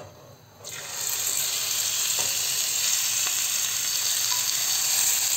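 Raw chicken pieces sliding into hot olive oil in a frying pan: after a light tap, the oil bursts into a sizzle about half a second in and keeps frying with a steady, loud sizzle as the chicken begins to brown.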